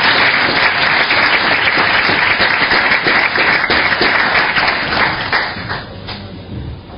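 Audience applauding, many hands clapping together, dying away about six seconds in.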